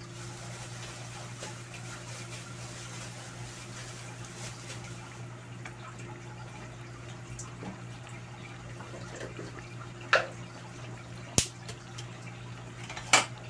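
Thick champorado (chocolate rice porridge) simmering in a pot over a steady low hum, with three short sharp pops of bubbles bursting at the surface in the last few seconds.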